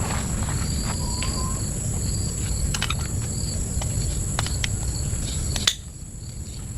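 Insects keep up a steady high-pitched drone against a low outdoor rumble, with scattered light clicks and taps. A sharp click comes near the end, and the rumble then drops away.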